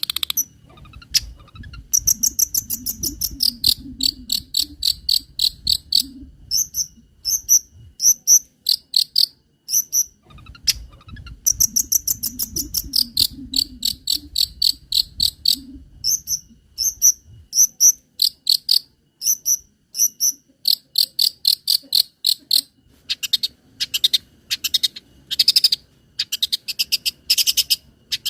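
Long-tailed shrike (cendet) singing rapid trains of high chirps, several seconds at a time with short pauses between, in a cricket-like run of its mimicked song material. A low rumble sits under the first few seconds and again in the middle.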